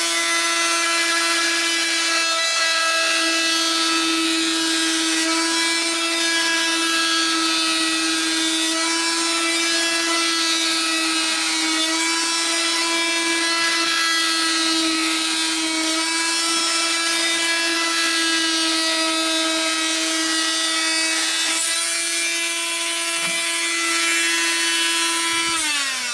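Oscillating multi-tool with a carpet-knife blade tack-welded on at 90 degrees, running with a steady buzz as it slices through a wet car tire's sidewall. Its pitch drops near the end as it winds down.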